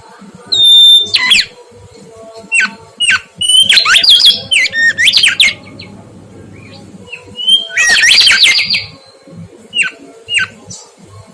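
Mangrove whistler singing: short, sharp down-slurred notes scattered through, with two loud bursts of fast, rising and falling whistled phrases, one about four seconds in and one about eight seconds in. A faint steady hum lies underneath.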